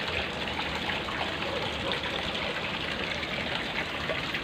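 Water flowing steadily along an irrigation channel (seguia) fed with river water.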